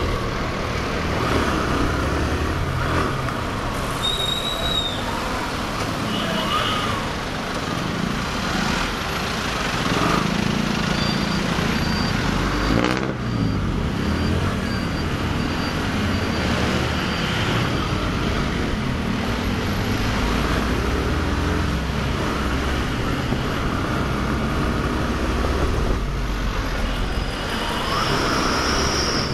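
Motorcycle engine running under way in city traffic, heard from the rider's seat, its pitch rising and falling with the throttle, with cars and trucks passing close by.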